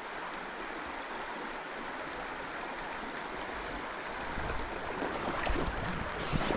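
River water running over stones, a steady rushing. From about four and a half seconds in, wind buffeting the microphone adds uneven low rumbles.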